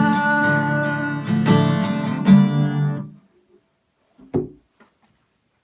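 Acoustic guitar strumming the closing chords of a song; the last chord rings out and stops about three seconds in. A single soft knock follows about four seconds in.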